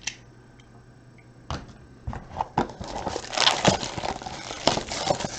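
Plastic wrapping being torn and crinkled off a sealed box of trading cards, with handling clicks and taps. It is quiet for about a second and a half, then comes an irregular run of crinkles and clicks.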